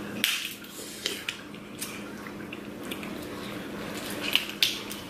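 Eating a crab-leg seafood meal: a scatter of sharp clicks and cracks from shells and utensils against the dishes, two close together near the end, with quieter handling of food in between.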